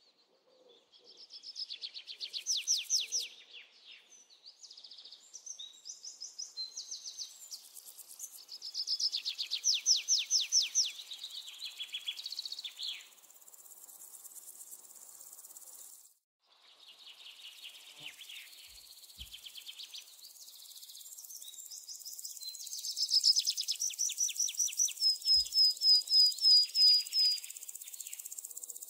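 Nature ambience of insects and birds calling. High chirping trills come in bursts of a few seconds with short gaps, and a quick series of clear piping notes sounds near the end.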